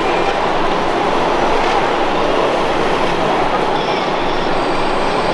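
Model Liebherr 960 excavator's metal crawler tracks and drive motors grinding and clattering steadily as it crawls up onto a low-loader trailer.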